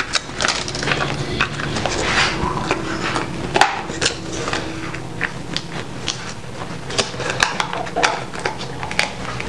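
Snap-on plastic lids being pressed onto filled plastic food containers, with many irregular clicks and knocks of plastic on plastic and on the counter.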